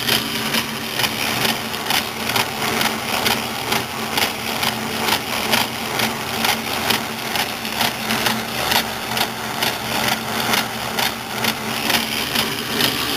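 South Bend 9A lathe running under power, its quick-change gearbox set to tumbler hole A, column 2 (4.5 threads per inch), giving a regular, repeating thump over the steady hum of the gearing. The thump comes only in this one gearbox setting, from a fault inside the gearbox that the owner has not pinpointed and suspects is whatever used to make it lock up.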